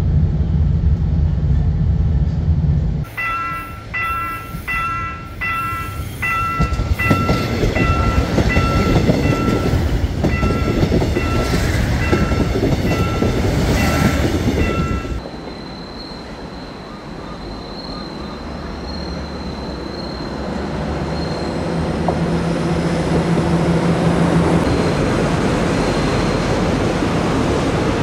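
Diesel railcar running on the track with a steady low rumble. About three seconds in, a chiming bell starts to ding about twice a second over a rising rumble and rattle, and keeps on for about twelve seconds. The sound then changes suddenly to a softer, steady rushing noise with a faint high whine.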